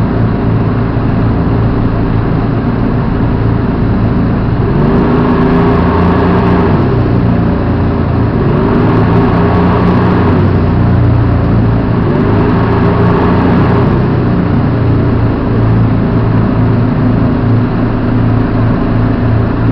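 Engine of a Hägglunds Bv206 tracked amphibious carrier running loudly, heard from inside the cab as it moves through floodwater. It revs up and eases back three times, about five, nine and twelve seconds in.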